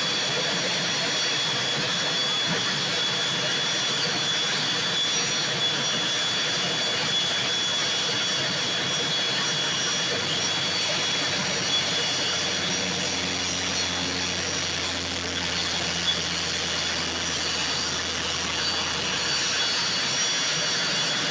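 Jet aircraft engines running steadily: a constant turbine rush with a high, even whine.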